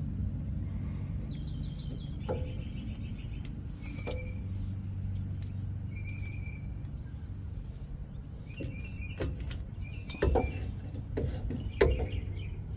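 Birds chirping off and on over a steady low hum, with a few sharp knocks, the loudest about ten and twelve seconds in.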